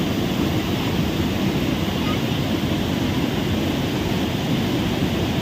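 Flood-swollen mountain stream in spate after torrential rain, its muddy water rushing over boulders in a steady, loud, unbroken rush.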